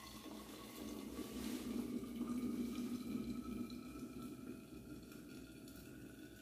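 Hot water poured from a metal jug into a cloth coffee filter, with brewed coffee running down into a thermos flask. The pouring swells about two seconds in and eases off, and a faint tone rises slowly in pitch as the flask fills.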